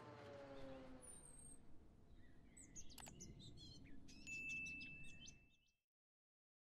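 Faint sound effects of a channel logo intro: a falling tone fades out in the first second, followed by scattered chirps and a held high whistle, then it cuts to dead silence about six seconds in.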